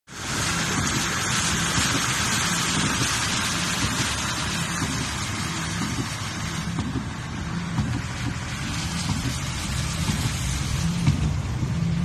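A car's engine humming steadily under a loud, even hiss of rain or rushing air, heard from inside the vehicle; the hiss eases a little about halfway through.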